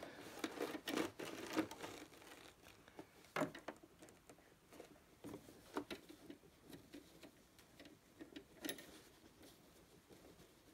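Quiet rustling of camouflage uniform fabric with scattered light clicks, irregularly spaced, as it is shifted about at a sewing machine's needle plate.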